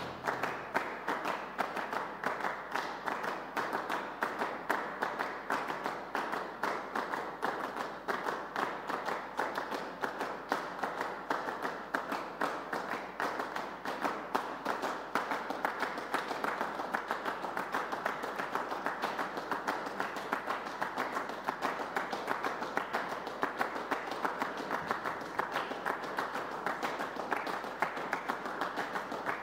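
Dense, steady clapping of many hands, sustained applause that keeps an even level throughout.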